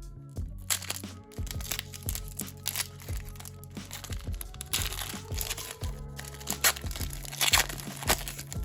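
Background music with a steady bass line, over which a trading-card pack's foil wrapper crinkles and crackles in handling, with the loudest crinkles about five and seven and a half seconds in.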